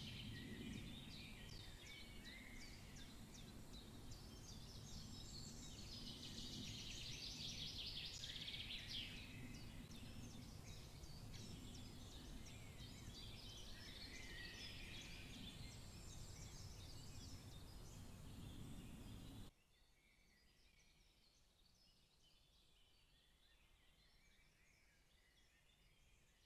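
Faint outdoor park ambience: many small birds chirping and twittering over a low, steady background rumble. About twenty seconds in it cuts off suddenly to near silence.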